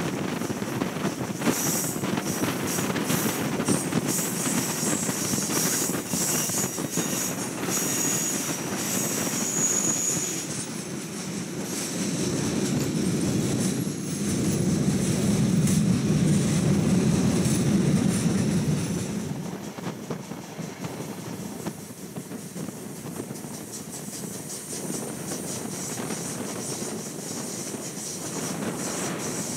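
Rocky Mountaineer passenger train's wheels running on the rails, heard from on board, with a high wheel squeal on the curve for the first ten seconds or so. A louder low rumble comes about 14 seconds in, easing off after about 19 seconds.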